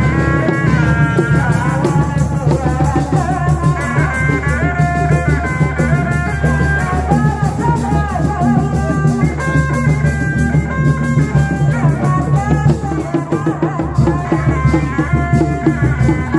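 Sundanese reak ensemble playing: dogdog drums beating a dense, steady rhythm under a held, bending high melody line.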